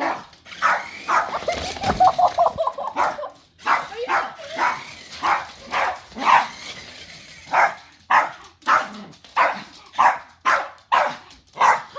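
A dog barking over and over in quick short barks, about one to two a second: excited barking set off by a remote-control toy car.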